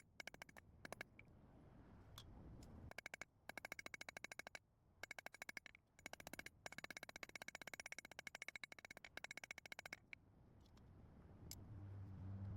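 Quick runs of hammer blows on hot spring steel against an anvil, several strikes a second, the anvil ringing with each blow, broken by short pauses.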